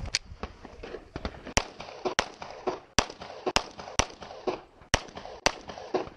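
About eight pistol shots in a rapid string, several fired in pairs about half a second apart, with fainter cracks between them.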